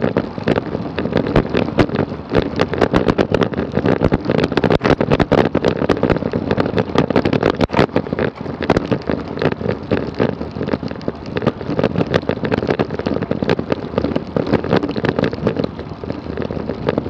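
Wind rush and road noise picked up by a camera on a road bike riding at speed, with a rapid run of clicks and rattles from the bike over the road surface.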